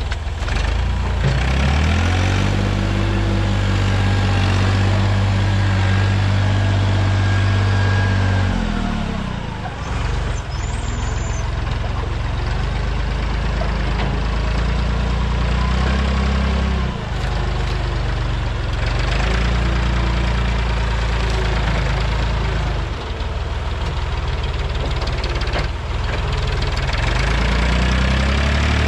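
Massey Ferguson loader tractor's engine running, its speed rising and dropping back several times as it works.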